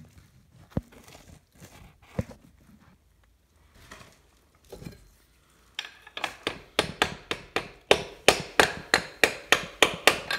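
Metal-on-metal tapping as the end of a connecting rod is struck to drive a piston out of a cylinder bore in a Subaru FB25 engine block: a few scattered knocks, then from about six seconds in a quick run of taps, about three a second.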